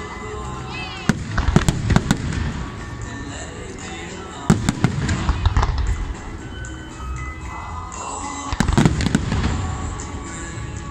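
Aerial fireworks shells bursting in an irregular series of sharp bangs, some in quick pairs, with music playing underneath.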